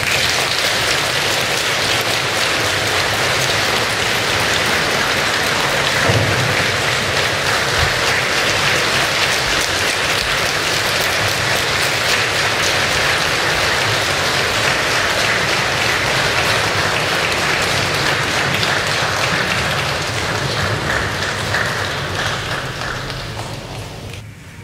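Audience applauding steadily, fading away in the last couple of seconds.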